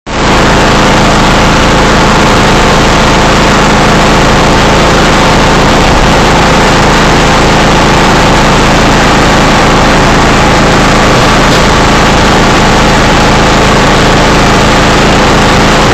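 Engine idling steadily and loudly, unchanging throughout.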